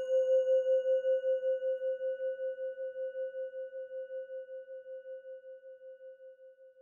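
A singing bowl ringing out after a single strike: one steady tone with faint higher overtones, pulsing about four times a second and slowly fading away.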